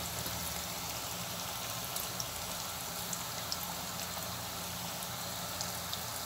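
Flour-coated cauliflower pieces deep-frying in hot oil in a pan: a steady sizzle with scattered small pops and crackles, over a low steady hum.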